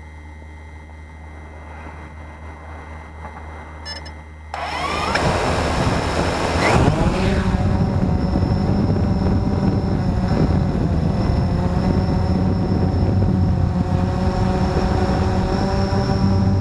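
Blade 350 QX2 quadcopter's motors and propellers: a faint steady hum at first, then about four and a half seconds in the motors spin up with a rising whine and settle into a steady loud buzz with rushing prop wash as it lifts off and climbs, heard from the camera carried on the drone.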